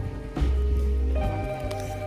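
Background music: held chords over a deep bass note that comes in about half a second in.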